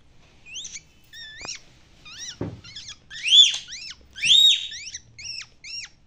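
Rose-ringed parakeet (Indian ringneck) giving a quick run of about a dozen short, high, rising-and-falling chirping calls, the two loudest near the middle.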